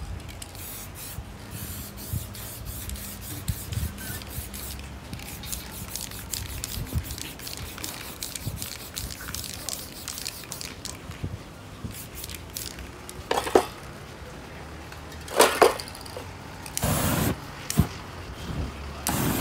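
Aerosol spray paint cans hissing in many short bursts, then several louder, longer blasts in the last few seconds.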